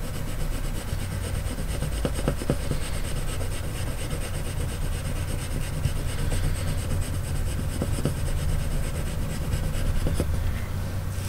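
Coloured pencil rubbing and scratching on paper in short fur-line strokes, with faint irregular ticks of the tip, over a steady low hum.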